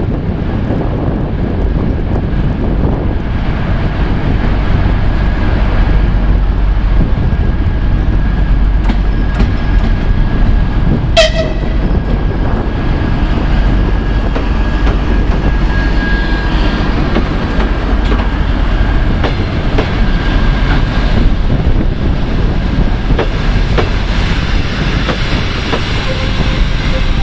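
TEP70BS diesel passenger locomotive arriving and running slowly past, its diesel engine running under heavy rumbling rolling noise, followed by coaches rolling by with wheel clatter. A thin steady squeal runs through much of it, and there is a brief sharp tone about eleven seconds in.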